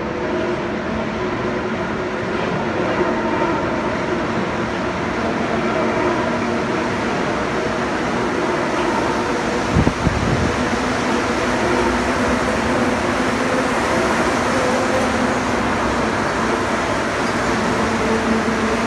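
Montreal metro train, rubber-tyred, arriving into the station: a steady running noise with several humming tones that grows slowly louder as the cars draw alongside. One short low thump about halfway through.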